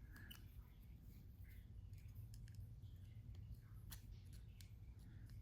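Faint, scattered clicks of thin jewelry wire being handled and maneuvered into place, over quiet room tone.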